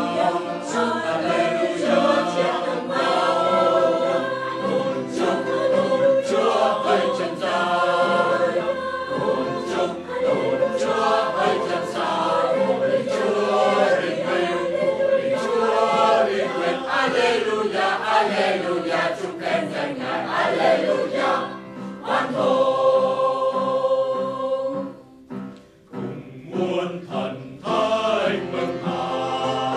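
Mixed choir of men and women singing in parts, with a brief pause near the end before the singing starts again.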